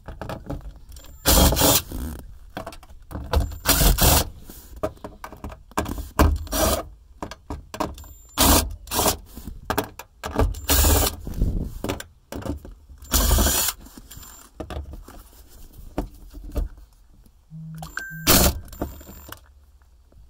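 Cordless impact driver with a 10 mm socket running in a string of short bursts, backing out the bolts of a fuel pump access cover.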